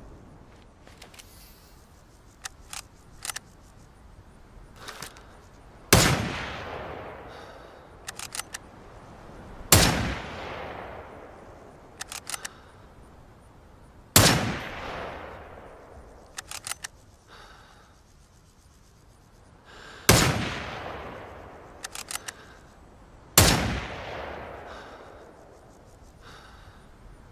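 Mosin-Nagant M91/30 bolt-action rifle (7.62×54mmR) firing five single shots a few seconds apart, each with a long echoing tail. Between shots come short clusters of metallic clicks as the bolt is worked to chamber the next round.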